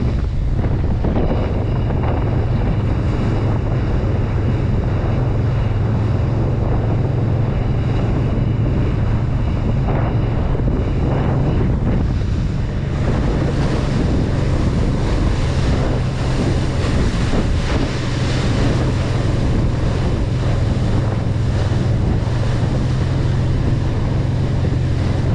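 Motorboat running fast through choppy water: a steady low engine drone under heavy wind noise on the microphone and the rush and splash of spray off the hull.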